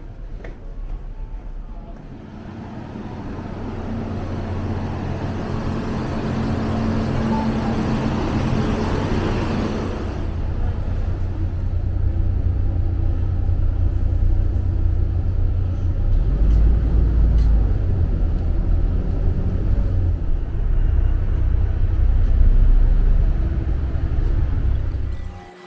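Interior of an airport apron shuttle bus on the move: engine and road noise in a steady low rumble. It builds over the first several seconds and cuts off abruptly just before the end.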